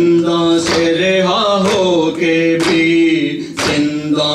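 Unaccompanied male voices chanting an Urdu noha (Shia lament), holding one long note for most of the stretch before moving to a new pitch. Sharp matam chest-beating strikes fall in time with it, about one a second.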